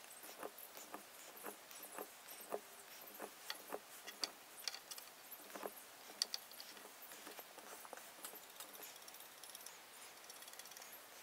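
Faint, irregular light clicks and taps as oak chair parts are handled and epoxy is brushed onto them, thinning out after about seven seconds.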